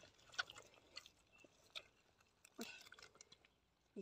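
Gloved hands digging and scraping into dry, cracked mud: faint, scattered crunches and crumbling clicks, with a longer crackle a little past halfway.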